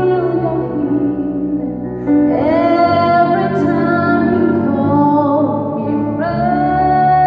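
Gospel song with a woman's solo voice singing long held notes over keyboard accompaniment. New phrases start about two seconds in and again near the end.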